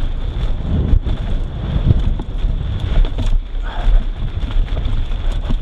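Wind buffeting the microphone of a camera on a mountain bike rolling down a dirt trail, a steady low rumble with tyres crunching over dirt and the bike rattling in many small clicks and knocks.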